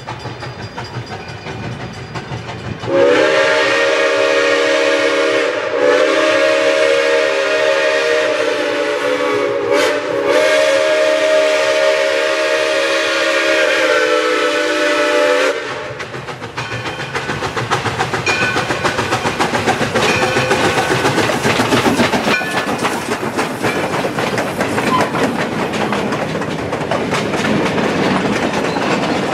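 Steam locomotive's multi-chime whistle sounding long, long, short, long, the grade-crossing signal. The locomotive is Black River & Western No. 60, an ALCO 2-8-0 Consolidation. The train then rolls by close up, its wheels clicking over the rail joints.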